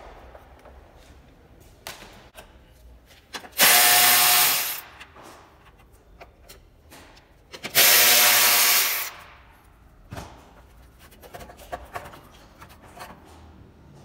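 A power tool running in two loud bursts of about a second each, roughly four seconds apart, with a steady motor whine. Small clicks and knocks of parts being handled come between them.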